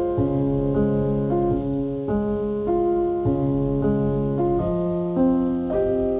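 Background piano music: a steady run of notes and chords, changing about every half second.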